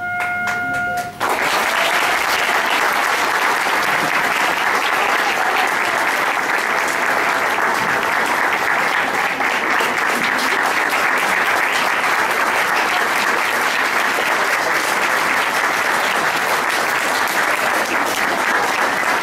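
A held tone ends about a second in as a school-hall audience breaks into applause, dense steady clapping that keeps up without a break.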